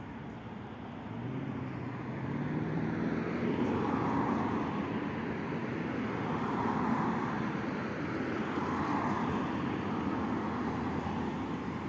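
Road traffic on a city street: cars driving past with tyre and engine noise, one engine speeding up about a second in, then several cars going by in turn.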